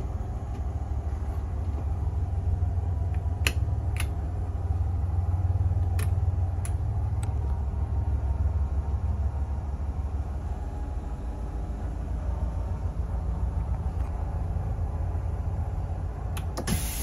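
2018 Thomas C2 school bus's propane engine idling steadily, a low rumble heard from inside the cab. A few light clicks come over it, a cluster in the first half and a couple more near the end.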